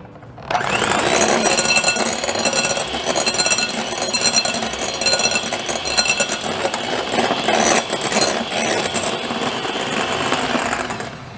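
Electric hand mixer running, its beaters whipping egg whites in a glass bowl toward firm, slightly bent peaks. It starts about half a second in and stops shortly before the end.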